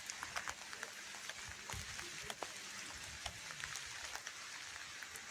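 Heavy rain falling, a steady hiss with scattered sharp drop taps close to the microphone.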